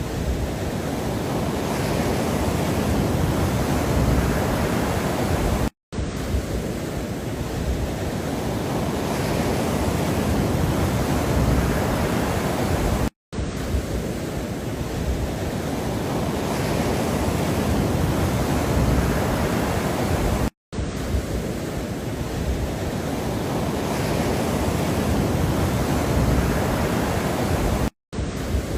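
Steady rushing noise of a looped relaxation sound that swells gently through each repeat. It cuts to silence for a split second four times, about every seven seconds, where the loop restarts.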